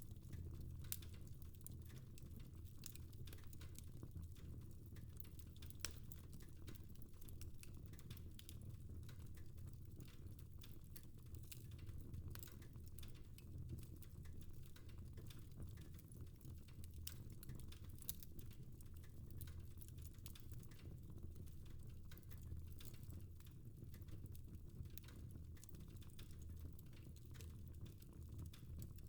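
Fire in a fireplace crackling faintly: irregular small pops and snaps over a low steady rumble.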